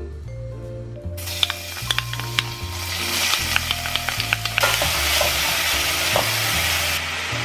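Minced garlic and diced onion sizzling in hot olive oil in a stainless steel saucepan, stirred with a spoon that clicks against the pan. The sizzle starts about a second in and grows louder about halfway through.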